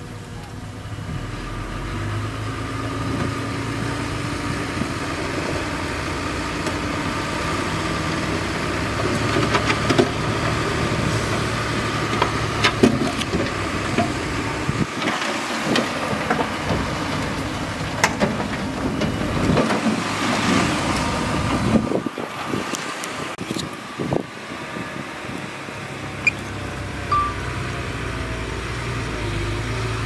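Caterpillar D6D bulldozer's six-cylinder diesel engine running steadily as it works, with sharp clanks and knocks scattered through the middle stretch.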